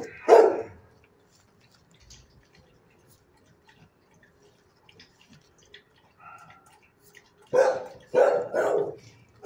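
A dog barking. There is one bark right at the start, then a pause, then three barks in quick succession near the end.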